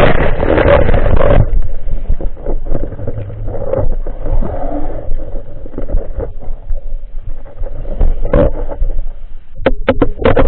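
Muffled underwater rushing and scattered knocks picked up by a camera in a waterproof housing mounted on a speargun during a dive. The noise is heaviest for the first second or so and quieter after. A few sharp knocks come near the end.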